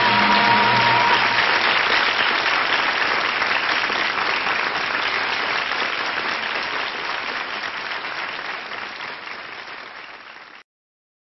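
Audience applauding at the end of a live song recording, with the last held notes of the music dying away about a second in. The clapping slowly fades out and cuts off suddenly near the end.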